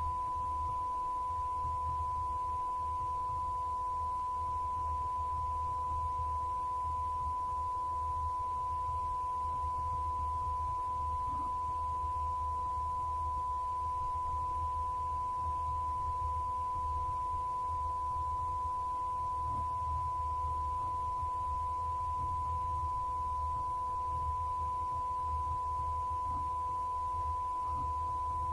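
A steady electronic test tone at one unbroken pitch, like a held bleep, over a faint low hum.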